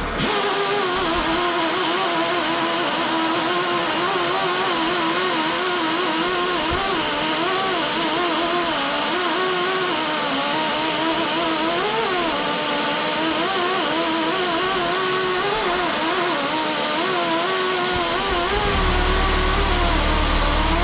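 Small pneumatic angle grinder's air motor running free with a high whine and air hiss, its speed wavering unevenly up and down: it has significant bearing play and does not sound healthy. A low steady hum comes in near the end.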